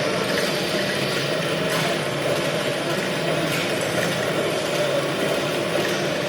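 Improvised turntable-and-drums sound-art performance: a dense, steady noise texture with a band of low hum and a few faint clicks.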